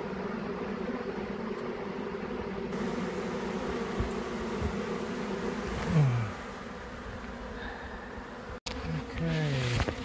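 Swarm of honeybees buzzing steadily at close range, with single bees flying past close by, their pitch falling as they pass, about six seconds in and again near the end.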